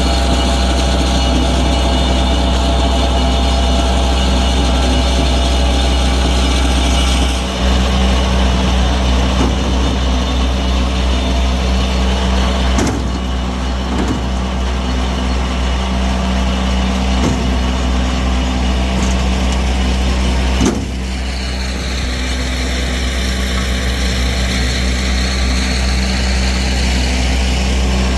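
An engine running steadily with a heavy low hum; its sound changes abruptly about seven and a half seconds in and again about twenty-one seconds in.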